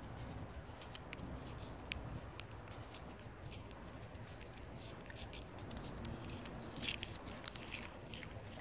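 Cat licking and smacking at a squeeze tube of lickable cat treat: a run of small wet clicks at an uneven pace, thickest about seven seconds in.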